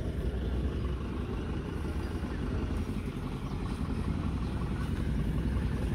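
Sand-delivery truck's engine running as the truck comes slowly up a dirt lane, a steady low rumble that grows a little louder in the second half.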